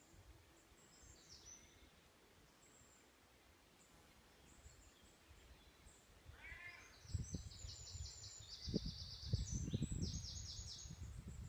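Woodland songbirds singing: a short high call about a second in, then from about seven seconds a long, fast run of high repeated notes in two bouts. Under the song in the second half, a low gusty rumble of wind buffeting the microphone is the loudest sound.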